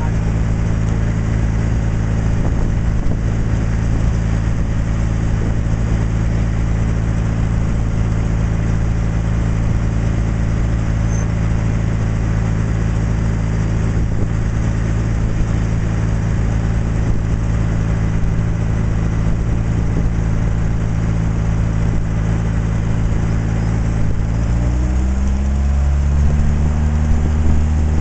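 Boat engine running steadily, with its note dropping lower near the end.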